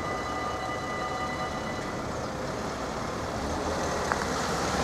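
Road traffic at an open level crossing: a van drives over the crossing with tyre noise on the wet road. Several steady high tones fade out during the first two seconds, and there is a single sharp click about four seconds in.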